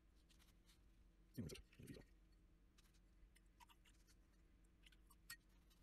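Near silence, with two soft knocks about a second and a half in and a few faint clicks later: small clear plastic fountain pen parts being handled.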